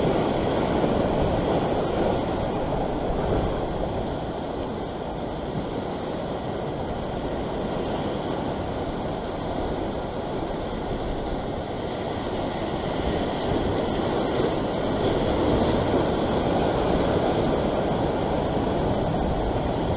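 Ocean surf washing against a rock ledge: a steady rush of water that eases a little midway and builds again.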